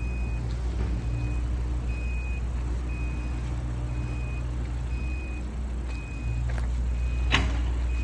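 Zoomlion ZS080V skid steer loader running with a steady low hum while its alarm gives a short high beep about once a second; a single sharp click sounds near the end.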